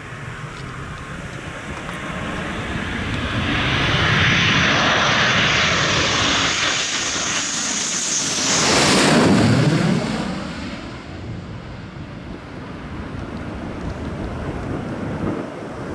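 Twin-engine F-15 fighter on landing approach with gear down, flying low overhead. The jet noise builds to its loudest about nine seconds in, its high whine dropping in pitch as the aircraft passes, then fades away.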